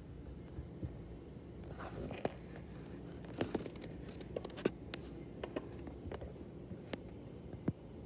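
Phone handling noise: scattered light clicks and scrapes, with a brief rustle about two seconds in, over a steady low background hum.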